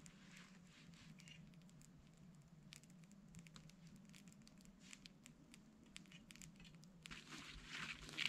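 Near silence: faint scattered ticks and light pattering, with a short rustle near the end.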